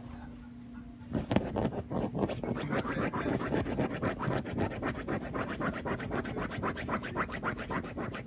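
Fast, even scratching on a fabric blanket, several strokes a second, starting about a second in, from a freshly bathed small dog rubbing and digging at the bedding or being scratched there.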